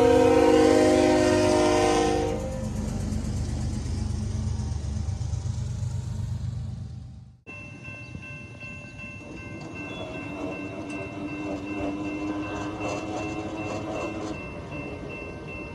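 A passenger train's locomotive horn sounds a loud chord and stops about two seconds in, leaving the rumble of the train rolling by. After a sudden cut about halfway through, the train keeps rumbling past with a steady high ringing over it.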